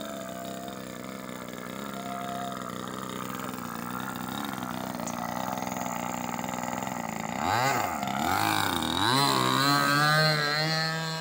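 9 cc engine of a radio-controlled Husky model plane idling steadily, then blipped up and down a few times about seven seconds in before running up to a steady high-pitched full throttle for the takeoff roll on its maiden flight.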